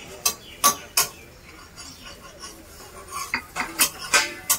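Metal spatula clinking and scraping on a flat iron griddle (tawa) while an uthapam cooks: a string of sharp metallic clinks, three in the first second and another cluster in the last second and a half.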